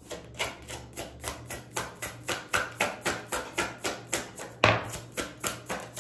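A deck of tarot cards being shuffled by hand: a quick, even run of soft card slaps, about four a second, with one louder slap near the end.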